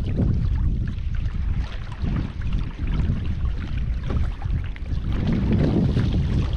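Wind buffeting the microphone over water splashing and rushing along a moving kayak's hull on open sea.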